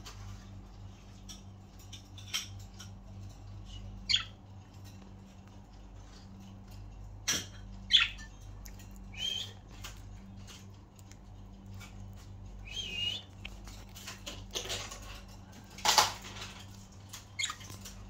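Budgerigars pecking seed from an open hand, with scattered small clicks and a few short chirps. A brief rustle comes near the end, and a low steady hum runs underneath.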